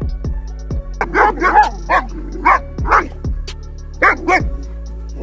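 A dog barking in short sharp bursts, about eight barks, at a snake. Background music with a steady beat runs underneath.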